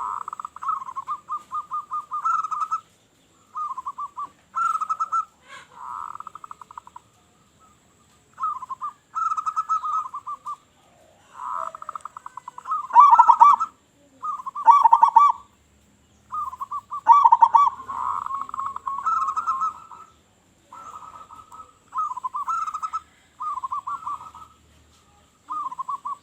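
Local zebra doves (perkutut) cooing: repeated phrases of rapid, rolling coos, each lasting a second or two, with short pauses between and at times overlapping.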